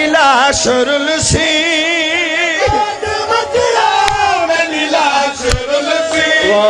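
Noha lament: a man's voice sings long held notes with a strong wavering vibrato, without clear words. Under it come the heavy strikes of mourners beating their chests in matam, about one every one and a half seconds.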